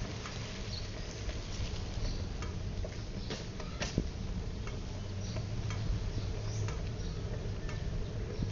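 Outdoor background: a steady low hum with irregular light clicks and ticks, about one or two a second.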